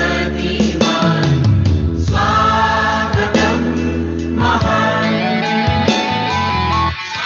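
A mixed choir of men and women singing an institute anthem in unison over instrumental accompaniment.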